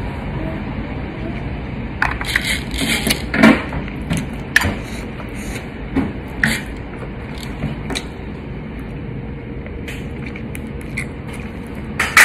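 Close-miked mouth eating sounds: irregular wet clicks, smacks and crunches of chewing and nibbling chicken feet, over a steady low background rumble.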